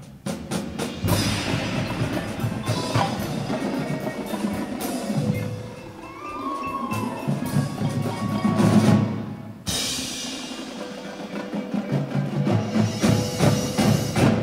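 Indoor percussion ensemble playing: marching drums and cymbals with marimbas and other mallet keyboards. The full ensemble comes in hard about a second in, and again near ten seconds after a brief drop.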